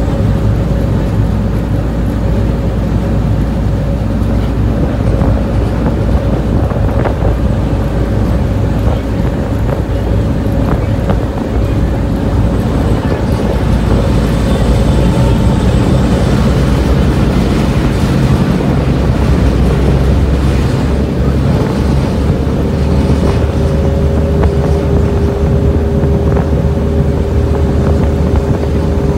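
A ferry's engines run steadily under way, a loud constant drone mixed with the rush of water churning in the wake. A second steady hum at a slightly lower pitch joins about 23 seconds in.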